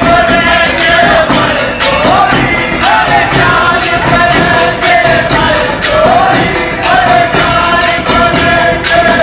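A Holi folk song sung by a group of voices together, over a steady beat of dhap frame drums and jingling percussion.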